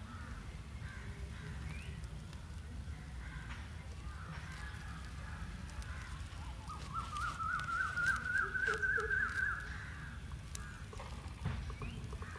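A bird calls with a quick run of notes that climbs in pitch over about three seconds, around the middle, over a low steady rumble. Faint scattered crackles come from the charcoal grill as coconut oil drips onto the coals.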